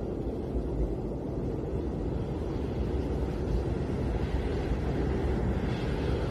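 Snowstorm wind: a steady low rush, with a gust of higher hiss building near the end.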